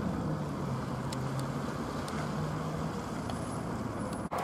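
Steady low engine rumble with a droning hum that fades out about three seconds in, then a brief dropout near the end.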